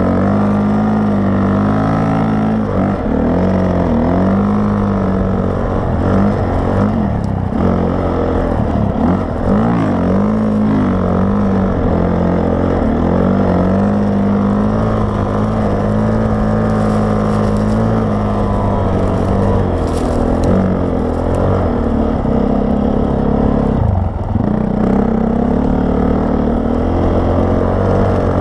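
Honda CRF450R single-cylinder four-stroke engine driving a Timbersled snowbike through deep snow, its pitch rising and falling as the throttle is worked. The engine briefly drops off and picks up again several times, most clearly about eight to ten seconds in and near twenty-four seconds.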